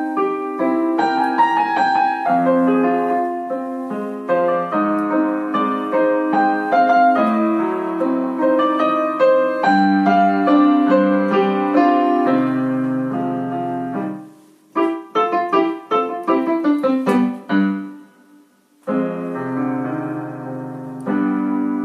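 Solo piano playing a slow, lyrical piece in sustained chords. About two-thirds of the way through comes a run of short, quick notes, then a brief pause before the held chords return.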